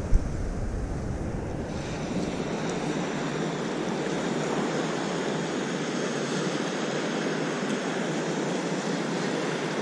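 Steady wash of shallow seawater lapping and splashing, with a single sharp knock right at the start.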